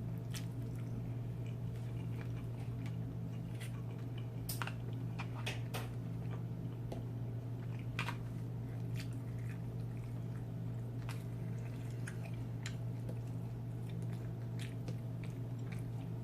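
A person chewing Chinese takeout food close to the microphone, with scattered short mouth clicks. A steady low hum runs underneath.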